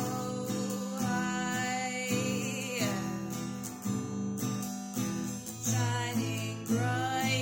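Acoustic guitar strummed under a singing voice holding long, wavering notes that slide in pitch at their ends.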